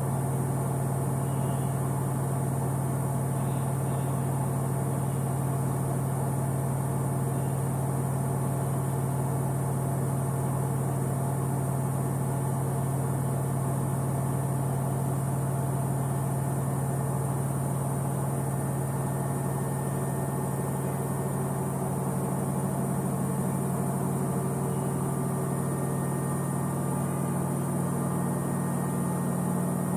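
Samsung front-load washing machine running: a steady motor hum with a strong constant low tone and a higher tone joining in about two-thirds of the way through.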